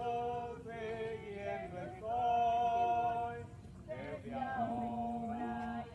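Group of men and women singing a Spanish baptism hymn unaccompanied, in long held notes with short breaths between phrases.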